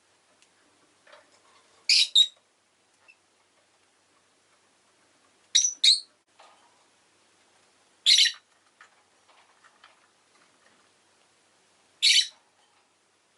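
Rosy-faced lovebirds giving short, shrill chirps every few seconds, some in quick pairs, between them only faint background noise.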